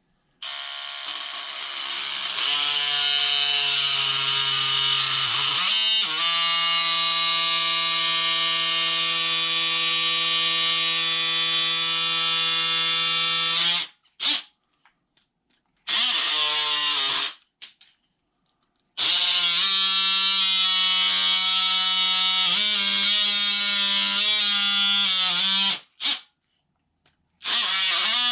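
DeWalt oscillating multi-tool with a wood-cutting blade, carving into high-temperature epoxy tooling board with a steady buzzing hum. It runs in stretches: one long run that steps up in pitch partway through, two short bursts, then a second long run.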